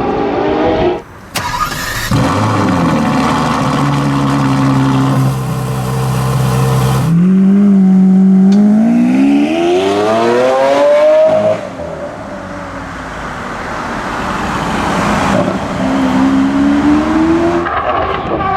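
V12 supercar engine: a steady low run, then a long rising rev as it accelerates that cuts off sharply, and another shorter rise near the end.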